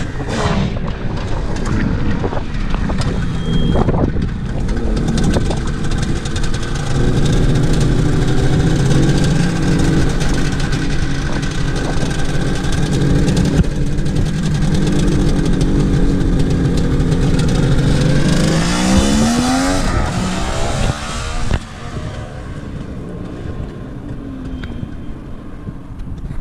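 Suzuki GT550's air-cooled two-stroke three-cylinder engine running under way. It holds a steady note through the middle, then rises in pitch as it revs up about three-quarters of the way in, and drops quieter shortly after.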